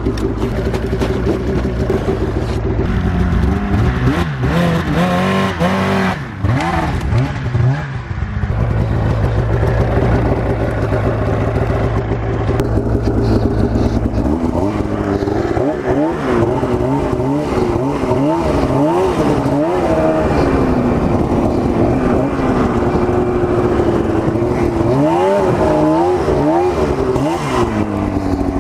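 Arctic Cat ZR 800 snowmobile's two-stroke engine running at a steady idle, with a few revs about four seconds in. From about halfway through it rises and falls again and again as the sled is ridden off and the throttle is worked.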